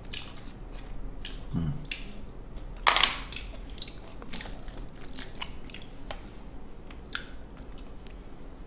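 A person chewing food, with small sharp clicks of chopsticks against a plastic lunchbox tray and a louder clatter about three seconds in.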